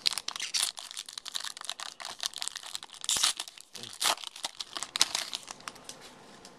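A shiny plastic football-card pack wrapper being torn open and crumpled by hand: a rapid run of crinkles and rips that dies away near the end.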